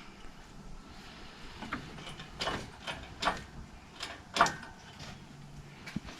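Irregular metal clicks, creaks and clunks from a shop engine hoist and the engine hanging from it as the engine is lifted out of the car's bay, with the loudest knocks in the middle.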